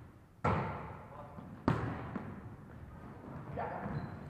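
Two sharp smacks of a volleyball, a little over a second apart, each echoing in a large hall. Faint voices come in near the end.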